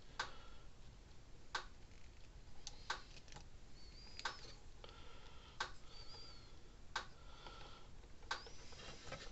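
Faint, irregular clicks and light metallic ticks from hand-held wire strippers squeezing a loose insulated spade terminal to tighten its grip, with a couple of faint high squeaks in the middle.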